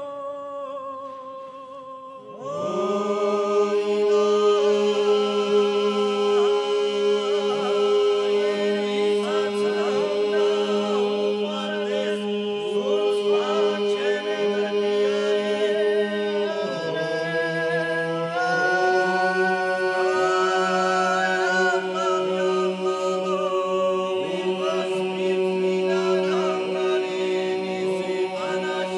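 Male vocal ensemble singing a Georgian folk song a cappella in several parts. A single voice leads for the first couple of seconds, then the full group comes in about two and a half seconds in, holding a steady low drone under moving upper voices; the drone drops lower briefly about two thirds of the way through and returns.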